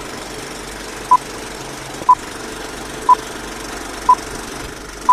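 Film-leader countdown beeps: a short high beep once a second, starting about a second in, over the steady whirring clatter of a film projector.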